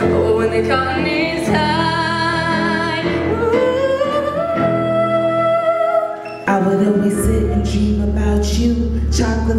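A woman singing a solo melody into a microphone, with sliding held notes over a steady accompaniment. About six and a half seconds in the music breaks off and another woman's song starts, over a heavy bass line and a beat.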